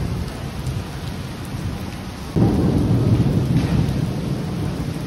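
Steady rain falling, with a low rumble of thunder that breaks in suddenly about two and a half seconds in and slowly fades.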